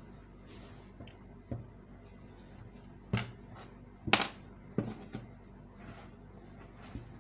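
Garment fabric being handled and turned over on a wooden table: a few brief rustles and soft knocks, the loudest about four seconds in.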